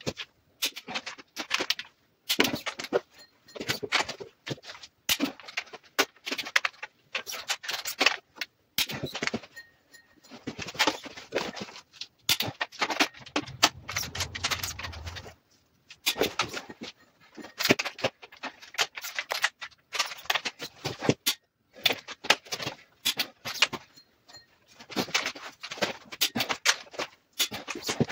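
Crankshaft of a freshly assembled bare engine block being turned over by hand with a long wrench on its nose, checking that it turns freely: bursts of metallic clicking about a second long, over and over with short pauses.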